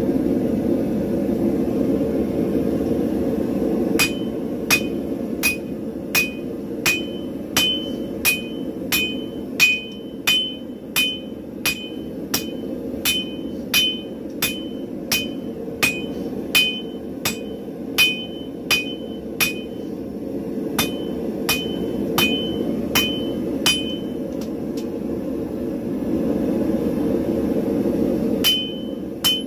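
Hand hammer striking hot spring steel held in tongs on an anvil, about two ringing blows a second, starting a few seconds in and pausing briefly near the end before starting again. Underneath, the steady rush of a gas forge's burners.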